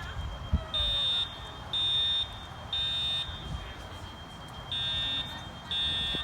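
Edwards Integrity fire alarm horn sounding the code 3 temporal pattern: three short, high-pitched beeps about a second apart, a pause, then the next set of beeps begins.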